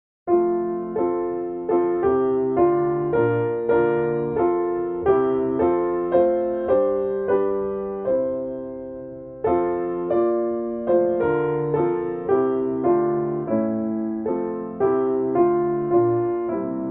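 Piano playing a slow tune in struck chords, about one every half second. About halfway through there is a longer held chord, and the piece ends on a held chord that fades away.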